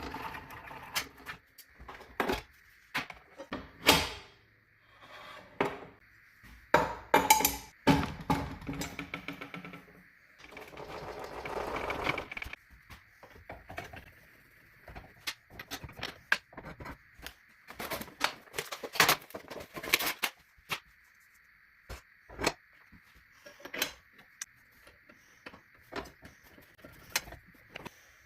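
Clicks, clanks and knocks of a wrench and metal parts being handled while a table saw blade is changed, with a longer scraping stretch about midway. A faint steady high tone runs underneath.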